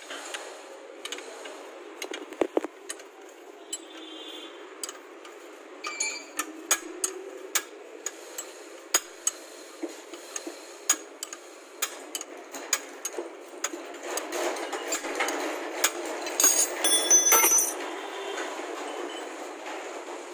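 Steel spanner working a nut on a vehicle's front suspension arm: irregular sharp metallic clinks and taps of tool on nut and bracket. About two-thirds in it turns into a louder, busier clatter of metal on metal for a few seconds.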